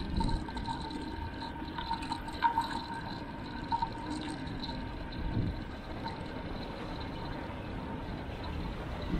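Wind and road rumble picked up by a bicycle-mounted action camera while riding, with a few light rattles and a faint steady high tone over it.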